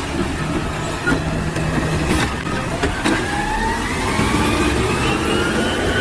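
Truck engine running, with a few sharp clicks early on. Over the last three seconds its pitch rises steadily as it revs up.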